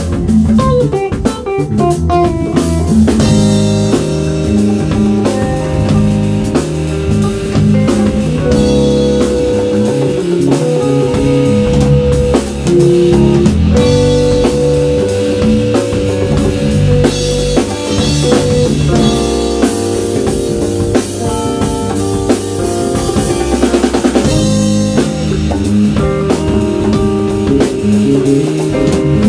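Live band playing an instrumental stretch: electric guitar over bass guitar, drum kit and percussion, with a steady beat. The lead holds long notes, and a note wavers with heavy vibrato or bending about 24 seconds in.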